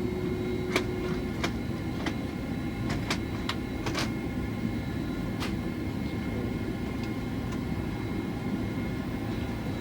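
Steady low hum of a Boeing 767-400ER airliner's cabin at the gate, with a few faint steady whines above it. Several sharp clicks and knocks sound through it, most of them between about one and five and a half seconds in.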